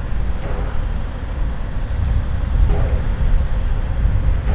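Green Cargo freight train approaching through the station: a steady low rumble, joined about halfway through by a thin, high, steady squeal lasting about three seconds.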